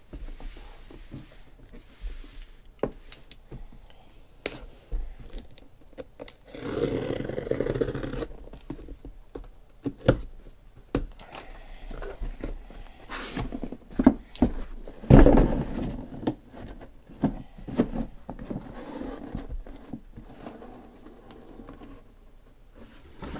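Cardboard shipping case being opened by hand: flaps tearing and scraping, with scattered knocks and thunks. There is a longer tearing stretch about seven seconds in and the loudest knock about fifteen seconds in.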